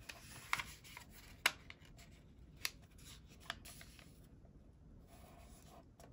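A square of origami paper being folded and creased by hand: faint paper rustling with four sharp clicks about a second apart as the folds are pressed flat.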